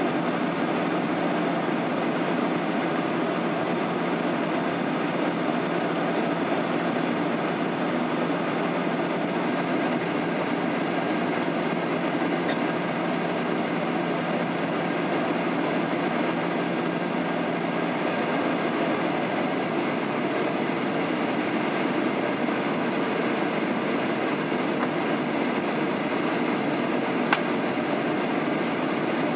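Steady cabin noise inside a Boeing 737-800 on its descent: the hum of its CFM56-7B engines and the rush of air past the fuselage. A low steady tone in it dies away about two-thirds of the way through, and a single faint click comes near the end.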